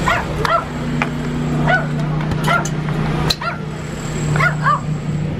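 A dog giving a run of short, high yips and whines, about nine in all, each rising and falling in pitch, over a steady low hum.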